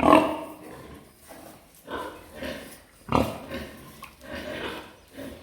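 Large Hampshire pigs grunting in a series of short, separate grunts, the loudest right at the start.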